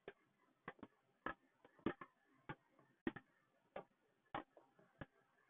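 Faint, even ticking, about three ticks every two seconds, like a metronome or clock.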